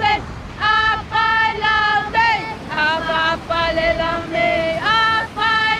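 High voices singing a slow melody in long held notes that slide between pitches, with a steady rushing noise underneath.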